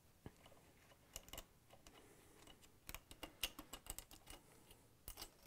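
Faint, irregular small clicks and ticks of a Phillips screwdriver backing a screw out of a KitchenAid stand mixer's trim band, with a few closer-spaced clicks about three seconds in as the screw is picked out by hand.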